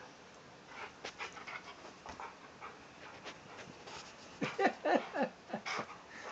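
Large dog (half Rottweiler, half Tibetan Mastiff) playing in a fleece blanket: soft rustling of the fabric, then, about four and a half seconds in, a quick string of short panting, whine-like sounds that drop in pitch, the loudest part.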